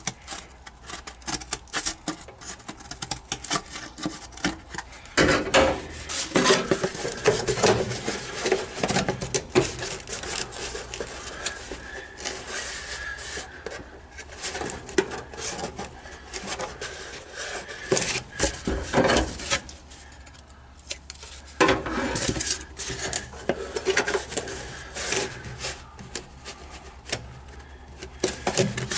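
Cardboard template being handled and pushed into a sheet-metal cab floor opening, scraping and rubbing against the metal with irregular rustles and small knocks.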